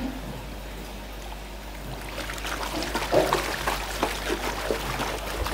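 Water splashing and sloshing in a plastic tub as a hand scrubs a plastic toy duck under the water. It starts about two seconds in, with many short splashes.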